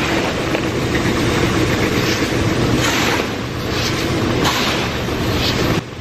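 Grain-bin power sweep auger running through shelled corn inside a corrugated steel bin: a steady, dense rattle of kernels being dragged along. A scoop shovel scrapes and throws corn toward it a few times.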